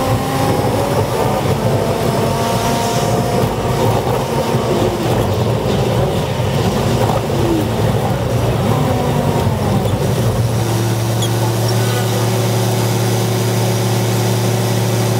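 Commuter bus engine and road noise heard from inside the cabin, sped up, while the bus moves through traffic. About ten seconds in, the rushing noise gives way to a steady engine hum as the bus stops in traffic.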